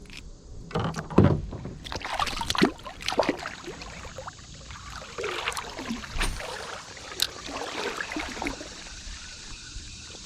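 Irregular splashing and sloshing in shallow creek water, a run of sudden splashes, the loudest about a second in.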